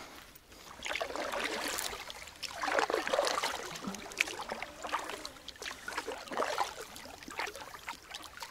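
Kayak paddle strokes: the blades dipping and pulling through water, with splashing and dripping that swell and fade every second or two.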